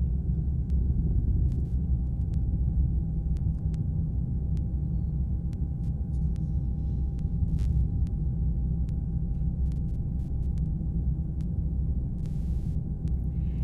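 Steady low rumble of a helicopter in flight, with a faint steady whine above it and a few faint clicks.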